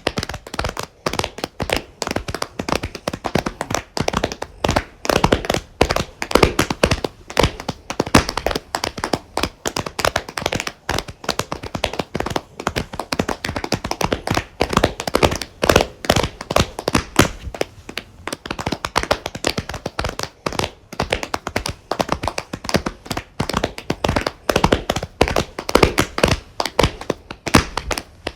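Applause from a very small group of people, with each person's hand claps heard separately.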